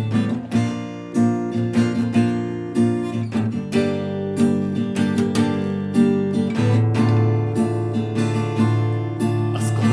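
Cort acoustic guitar strummed in a steady rhythm, several strokes a second, the chord changing about every three seconds.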